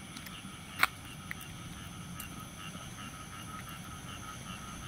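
Night chorus of frogs and insects: a steady high insect drone with a frog's short notes repeating rapidly and evenly. A single sharp click cuts in about a second in.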